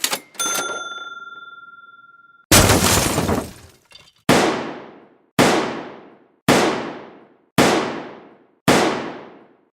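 Stock sound effects: a single metallic ding rings out and is cut off, then a loud crash, then five identical heavy impacts about a second apart, each dying away.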